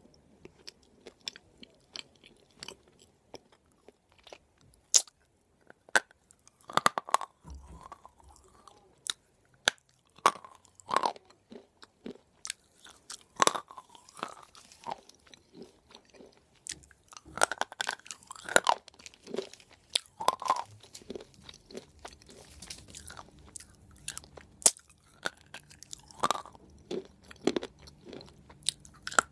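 Close-up chewing and crunching of baked edible clay, a person's mouth making irregular crisp crunches among softer wet mouth sounds.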